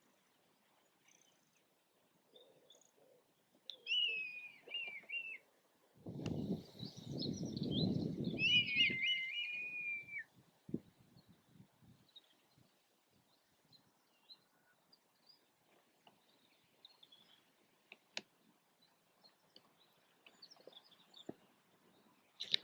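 Red kite calling: two thin, wavering whistled calls a few seconds apart, each quavering and sliding down in pitch. A burst of low rumble sits between and under them in the middle.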